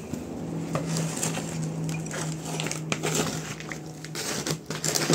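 Plastic scoop digging and stirring through potting soil in a plastic basin: gritty scraping and crunching with small knocks. A steady low hum runs underneath.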